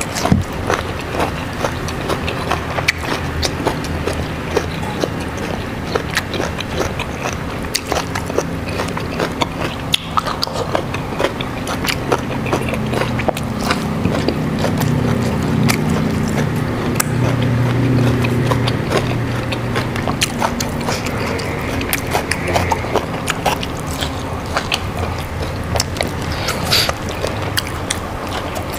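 Close-up chewing and crunching of raw vegetables and rice with many small crackles and clicks. A low steady drone swells up in the middle and fades again.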